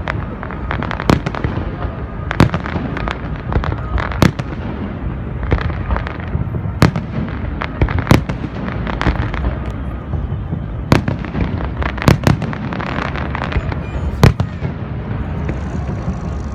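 Fireworks salute going off, a string of sharp bangs at irregular intervals, every second or so, over a continuous rumble of bursts and crackle.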